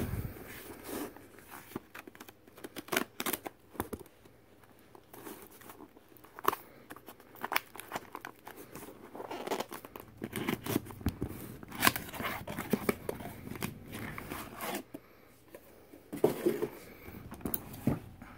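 Packing tape being torn and peeled off a small cardboard box, with cardboard rustling and scraping under the hands. Near the end come the clicks of a stack of hard plastic graded-card slabs being handled.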